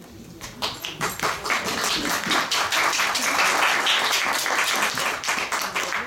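Audience applauding, starting about half a second in and thinning out near the end.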